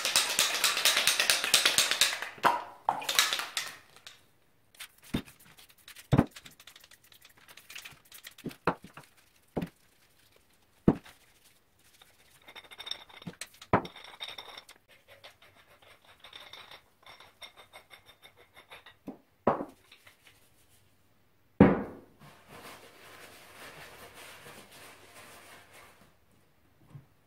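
Aerosol anticorrosion spray (ACF-50) hissing in a long blast over the steel gears and lifting screw of a screw jack, followed by scattered clinks and knocks of the metal jack parts being handled and set down on a workbench, one knock louder than the rest, and then a softer steady rubbing as the parts are wiped with a rag.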